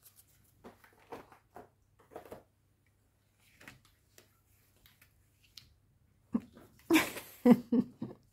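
Faint scattered taps and rustles of playing-card-sized oracle cards being handled and laid down on a cloth-covered table. Near the end, a few louder short vocal sounds.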